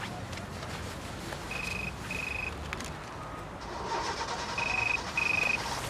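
Motorola mobile phone ringing for an incoming call: a high double beep, heard twice, the pairs about three seconds apart.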